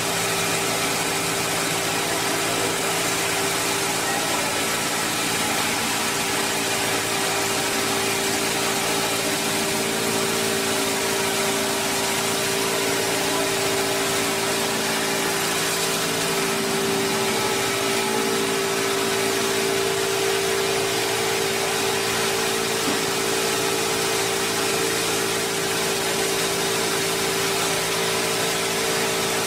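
Industrial log rounding machine running steadily as its rotary cutter head turns a log round, with the chip-extraction blower carrying the shavings away: a constant machine drone with a steady hum over a dense hiss.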